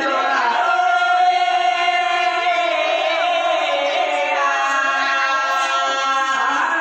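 A man singing a folk song into a microphone over a loudspeaker, holding long, drawn-out notes, most of all from about one to four seconds in.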